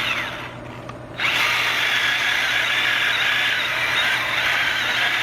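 Milwaukee battery-powered mini chainsaw: its motor winds down just after the start, then about a second in it starts again and runs steadily as the chain cuts into a thick log.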